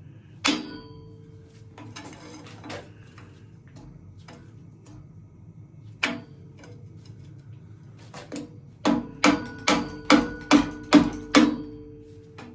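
Mallet blows on a bottom-bracket cup wrench, trying to break loose a tight fixed cup. One strike about half a second in, another at about six seconds, then a quick run of about eight strikes near the end, about three a second, each leaving a metallic ring.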